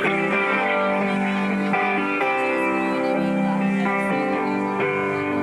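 Rock band music: the guitar intro of a song, with held guitar chords that change every second or so.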